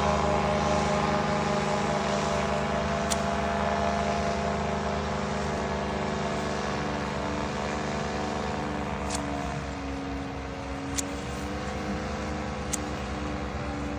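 Steady engine drone, dipping slightly in pitch for a couple of seconds past the middle, with a few sharp clicks.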